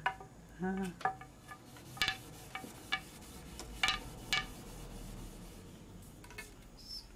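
Wooden bars of a backstrap loom knocking together as the weaver works the shed and beats in the weft. Several sharp wooden clacks, each ringing briefly, spaced irregularly about a second apart, with a longer pause before a last one near the end.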